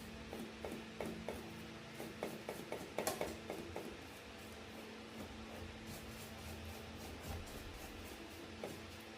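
Light clicks, taps and scraping of small hard objects being handled, thickest about three seconds in and sparser afterwards, over a steady faint hum.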